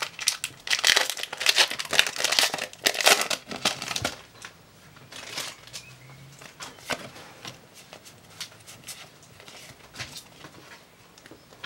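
Foil wrapper of a Pokémon booster pack crinkling loudly as it is torn open and crumpled for about four seconds. After that come quieter, scattered soft clicks and slides as the trading cards are handled.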